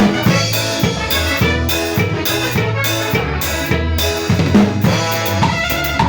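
A band playing music, with a drum kit's bass drum and snare hits over steady bass notes.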